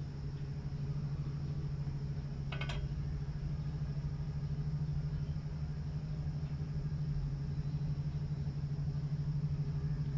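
A steady low hum, with a short cluster of light clicks about two and a half seconds in.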